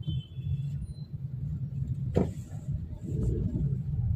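Car driving in city traffic, heard from inside the cabin: a steady low rumble of engine and road. A faint horn sounds briefly at the start, and there is a single thump about two seconds in.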